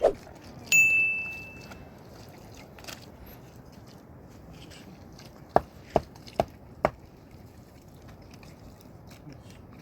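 A short ringing tone that fades over about a second, early in the clip. Then, after a few seconds of faint background noise, four sharp knocks come about half a second apart.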